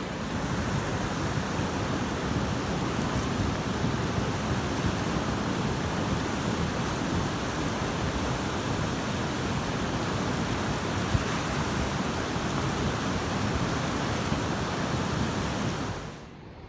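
Swollen river in flood, fast water rushing and churning in a dense, steady noise. It cuts off abruptly near the end.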